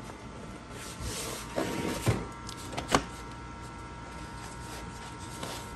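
Paper being slid and rubbed by hand along the paper feed of an HP DesignJet T120 large-format printer. There are about two seconds of scraping and rustling with two sharp clicks, over a faint steady high hum.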